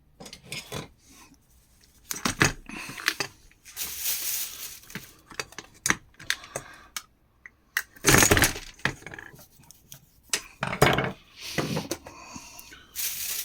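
Clinks, knocks and scrapes of parts and tools being handled while a mini fridge's cooling unit is taken apart, with a longer scrape about four seconds in and a loud one about eight seconds in.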